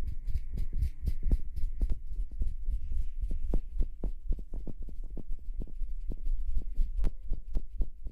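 Close-miked ASMR rustling on the microphone: rapid, irregular taps and scratches, several a second, over a constant low rumble.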